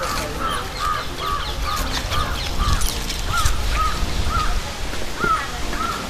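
Crows cawing over and over, a steady run of harsh caws at about two a second.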